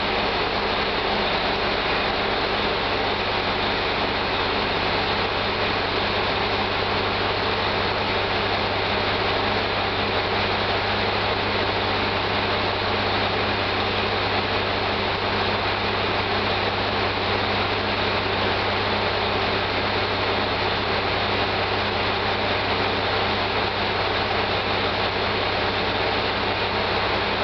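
Diesel railcar engine idling, a steady low hum that holds unchanged throughout.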